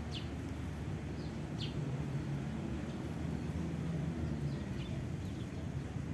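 Outdoor ambience: a handful of short, high, falling bird chirps over a steady low rumble.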